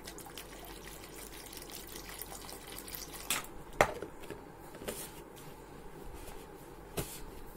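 Water being poured into the plastic container of a homemade steam vaporizer, with a few light knocks of plastic, the sharpest about four seconds in.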